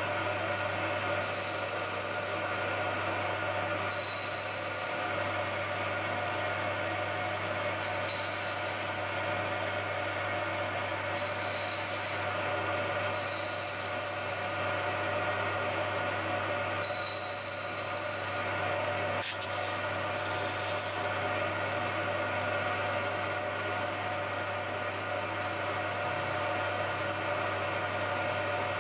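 Bridgeport milling machine running, its 3/8-inch end mill cutting a slot into a cast iron piston with the cutter plunged down at intervals. A steady motor and spindle hum runs under brief high whines that come every few seconds.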